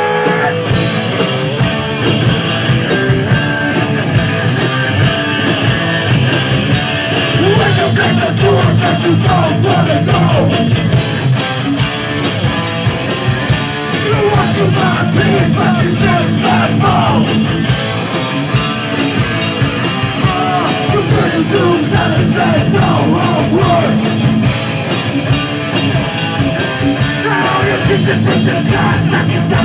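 Rock song with guitar, a steady drum beat and a singing voice.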